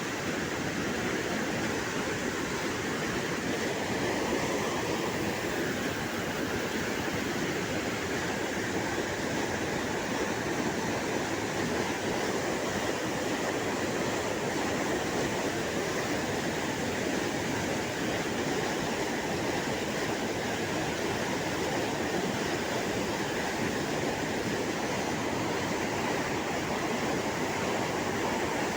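Fast-flowing Cauvery river water rushing steadily past a bridge, a constant even rush with no breaks.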